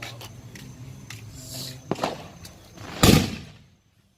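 A firework going off: a few small cracks, then one loud bang about three seconds in that dies away quickly.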